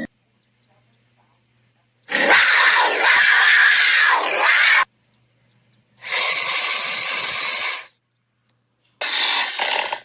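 Tiger snarling three times: harsh, breathy hissing snarls with no pitched growl, the first about two and a half seconds long, the second about two seconds, and the last a short one cut off near the end.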